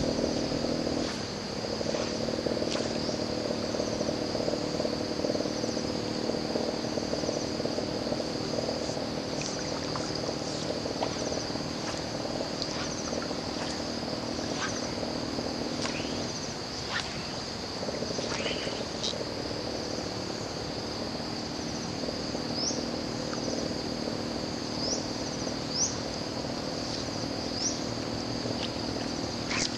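Pond-side chorus of insects and frogs: a steady high insect trill throughout, under a lower steady droning chorus that drops out for a moment about halfway through. A few short rising chirps come near the end.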